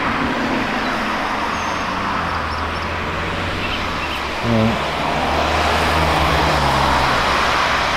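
Steady tyre and road noise from a moving car, with a low engine drone underneath and other cars passing by.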